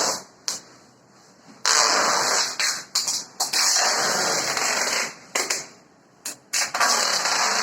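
Plastic packing material being pulled and wrapped, a noisy rasping that comes in stretches of one to two seconds with short breaks between them.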